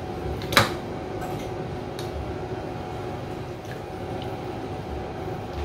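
A serving spoon clinks once against a ceramic bowl about half a second in, followed by a few faint taps, over a steady machine hum.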